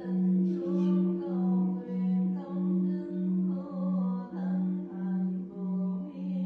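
The long hum of a great Buddhist temple bell (đại hồng chung), swelling and fading a little under twice a second, with a voice chanting over it.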